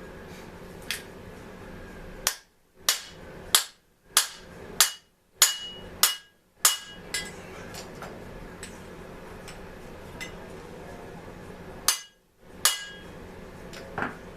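Hammer striking a metal part: a run of about eight sharp blows, a little under two a second, each with a short metallic ring, then after a pause two more blows and a lighter tap near the end.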